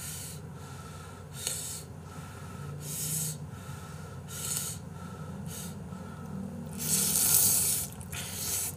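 Jjapaghetti noodles slurped into the mouth in a series of short, hissing pulls about every second and a half, with one longer, loudest slurp about seven seconds in.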